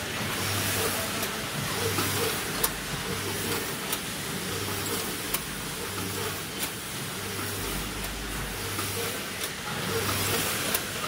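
14-head linear weigher with V-shaped vibratory feed pans running: a low hum swelling in pulses about once a second as the pans vibrate, with sharp clicks every second or so from the weigh hopper gates snapping open and shut, over a steady machine hiss.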